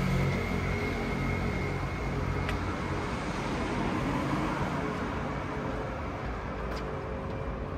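Street traffic: a vehicle's engine hum fades away in the first second or so, leaving steady road noise.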